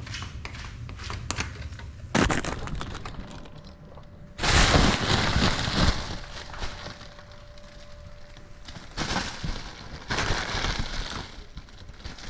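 Gusty rushes of air noise and knocks on the camera microphone of a small FPV drone flying right up against the pilot's body, with a faint steady motor hum in the middle stretch.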